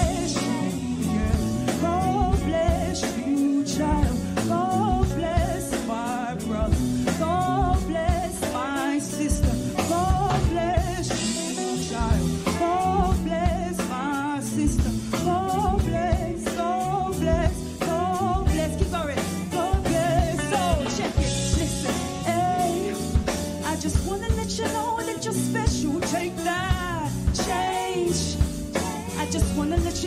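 A live band playing a soul song, with drum kit, bass guitar and guitar under a woman's lead vocal and backing singers singing melodic runs throughout.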